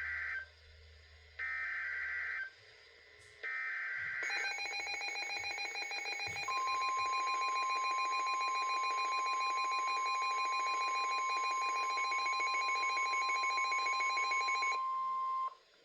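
NOAA Weather Radio emergency alert: three short screechy SAME digital header bursts, then a buzzy, rapidly pulsing electronic alarm. The steady 1050 Hz warning alarm tone joins about six seconds in and holds for about nine seconds, announcing a severe thunderstorm warning. Both stop just before the end.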